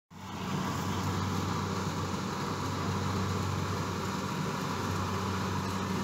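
Kubota combine rice harvester's diesel engine running steadily, a constant low drone with machinery noise above it, fading in at the very start.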